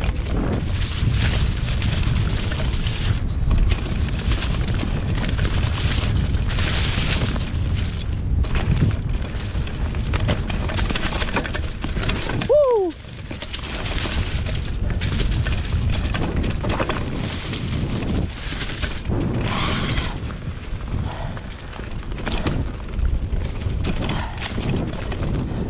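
A 2020 Specialized Pitch mountain bike descending a rough, leaf-covered dirt trail: a steady low rumble of wind on the microphone and tyres on dirt, broken by frequent knocks and rattles as the bike hits roots and rocks. About halfway through there is a brief falling squeal-like tone.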